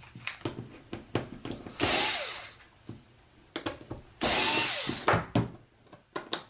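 Cordless power screwdriver backing out the two screws of a hair-clipper blade: two short runs of the motor, each under a second, with small metallic clicks of the blade parts and screws being handled in between.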